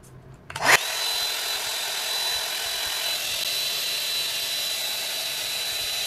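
TechKing 5-in-1 hot-air styler with its curling barrel attached, switched on about a second in: the fan motor spins up with a quick rising whine, then blows steadily, a rush of air with a high, even whine over it.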